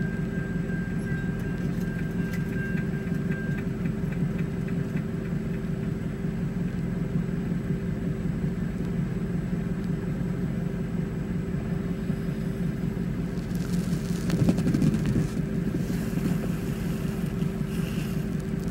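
Steady low rumble of an approaching CN diesel freight locomotive hauling a double-stack train, heard from inside a car with its heater running, so the car's own hum mixes in. There is a short swell in loudness about two-thirds of the way through.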